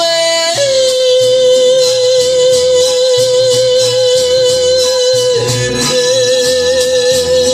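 A man singing a high, long held note with vibrato, then a second held note in the last two seconds, over a backing track of strummed guitar and bass.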